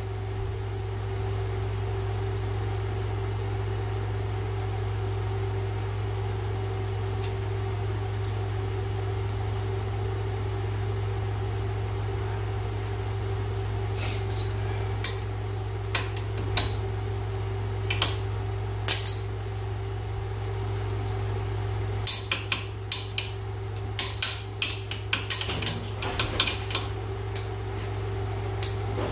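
Sharp metallic clicks and taps of hand tools on a castle nut and ball-joint stud as a cotter pin is fitted and bent over: a few scattered strikes about halfway through and a denser flurry near the end. A steady shop-fan hum runs underneath.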